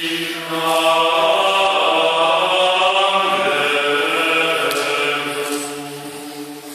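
Male a cappella choir singing a slow, chant-like piece in harmony, with long held chords. The sound fades away near the end.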